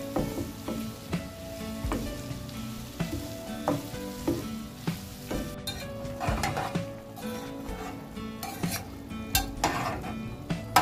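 A wooden spatula stirs sliced onions, green chillies and potato cubes sizzling in oil in a nonstick frying pan, with repeated scrapes and soft knocks. About halfway through, a metal ladle stirs chicken pieces in a steel pot, giving brighter scrapes and clinks.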